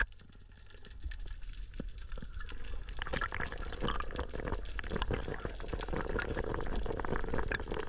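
Underwater sound through a diving camera's housing: water noise and bubbling, dense with many small crackling clicks, quieter at first and building after about a second.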